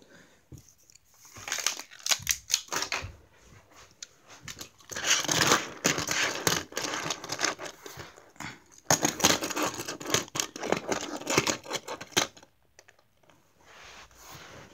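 Die-cast toy cars being set down, slid and knocked against each other on a hard plastic surface: bursts of clicks and scraping in three spells, fading near the end.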